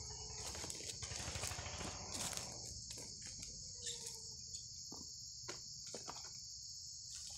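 Steady high-pitched chorus of insects, with rustling and scattered clicks in the undergrowth.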